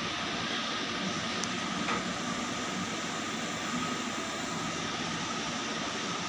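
Steady whir and hum of a cooling fan, as from the refrigerated cake display case or the room's air conditioning, running evenly.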